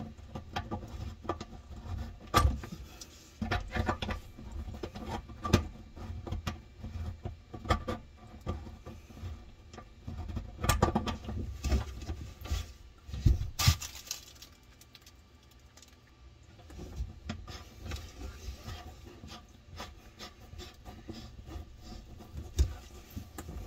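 A faucet supply hose's nut being threaded by hand onto the faucet's brass shank: scattered small clicks, taps and scrapes of the fittings, with a sharper knock a little past halfway and a quieter stretch after it.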